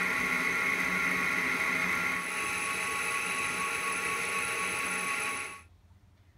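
Metal lathe running with a steady whine, its tool cutting the edge of a stuffing box held in the chuck. The cutting sound eases about two seconds in, and about five and a half seconds in the sound cuts off suddenly to near silence.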